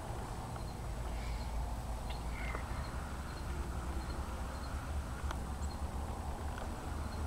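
Outdoor ambience: a steady low rumble with a few faint, short bird chirps and calls scattered through it.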